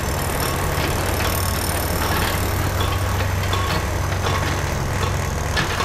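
A vehicle engine idling, a steady low hum.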